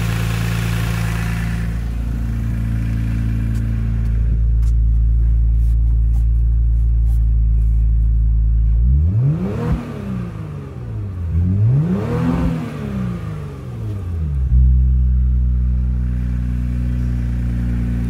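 2018 Kia Stinger engine idling steadily, then revved twice about halfway through, its pitch rising and falling each time, before settling back to a steady idle.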